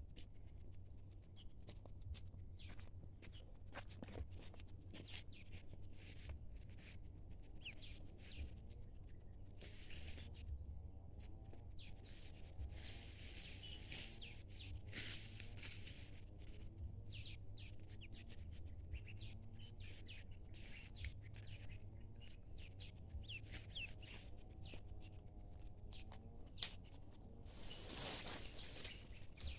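Ducklings peeping faintly now and then, short high chirps scattered among soft clicks over a low outdoor hiss, with one sharper tap a few seconds before the end.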